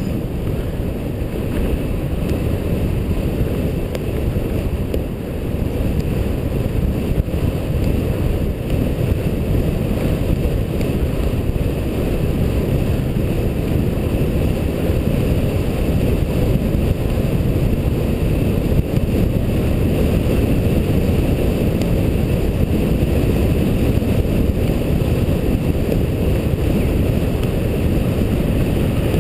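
Steady wind rumble buffeting the microphone of a GoPro HD Hero mounted on a moving vehicle, with the vehicle's running noise mixed in underneath.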